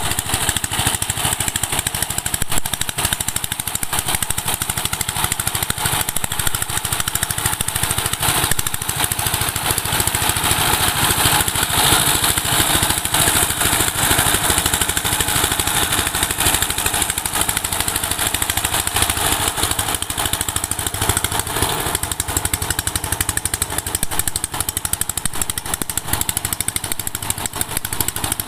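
12 HP single-cylinder diesel engine of a two-wheel power tiller running steadily under load while churning through a flooded paddy field, with a fast, even chugging.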